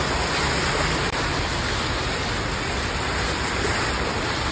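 Car driving through a flooded street, its wheels pushing through deep water with a steady rushing splash.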